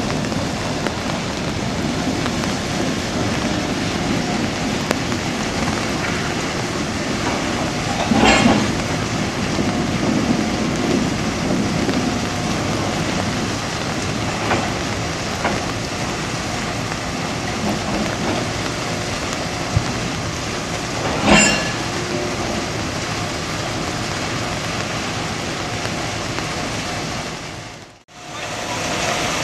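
Freight boxcars rolling slowly during a switching move, a steady rumble broken by two loud metallic clanks about thirteen seconds apart and a few lighter knocks. The sound drops out briefly near the end.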